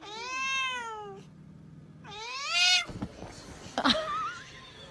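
A cat meowing: two long, drawn-out meows, the first rising and then falling in pitch, the second rising.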